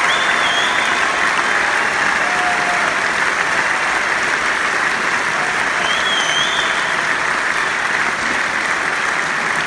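Large arena crowd applauding steadily, with a high whistle near the start and another about six seconds in.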